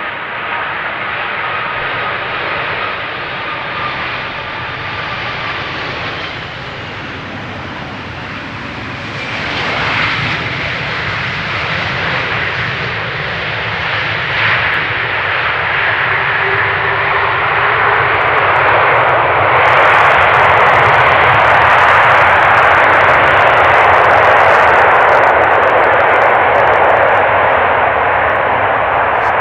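Silkway West Boeing 747-400 freighter's four jet engines on final approach, with a thin whine over the roar. The jet touches down about halfway through. About two-thirds in the engine roar swells louder as it rolls out on the runway.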